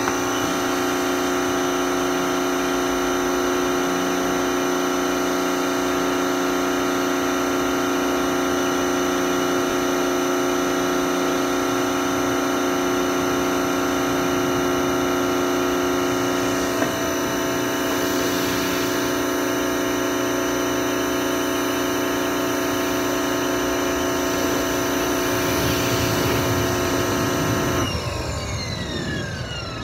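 Pressure washer's motor and pump running steadily as the wand sprays water at the car's wheels. About two seconds before the end the machine cuts out, its pitch falling as it winds down.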